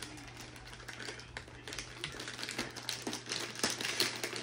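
Shiny foil wrapping paper crinkling and tearing as a child rips open a wrapped present, in quick irregular crackles that grow louder near the end.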